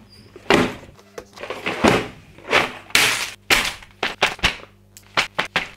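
A run of about a dozen sharp, irregular knocks and short crinkles as plastic parts bags and a paper instruction booklet are handled on a table.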